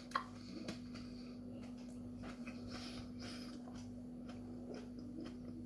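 Faint chewing and mouth sounds from someone eating a thick-fleshed superhot chili pepper: small wet clicks and soft breaths over a steady low hum.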